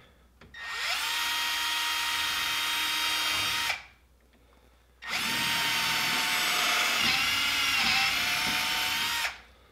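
Cordless drill with an 11/64 bit drilling out a brake cable end fitting held in a vise, enlarging it so the coated cable passes through. It runs twice, each time spinning up with a rising whine and then holding a steady pitch: about three seconds, a pause of over a second, then about four seconds, the pitch wavering as the bit cuts.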